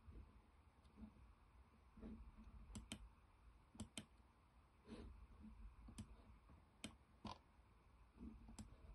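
Faint computer mouse clicks, about eight in all, irregularly spaced and some in quick pairs, over quiet room tone as a 3D map is navigated.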